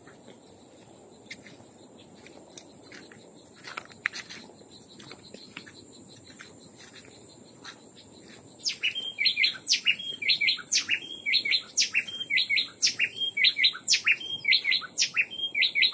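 A bird singing loudly from the trees, starting about nine seconds in: a fast, repeated run of short notes, each with a quick upward sweep. A thin, steady high-pitched whine runs underneath, with scattered faint ticks before the song begins.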